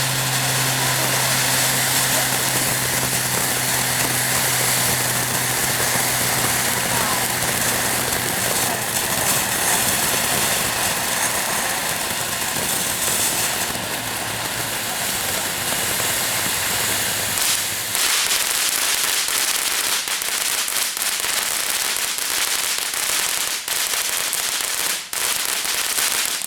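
Consumer ground fountain firework spraying with a loud, steady hiss and crackle. A low steady hum sits under it for the first two-thirds. In the last third, sharp cracks go off every second or two before the sound cuts off.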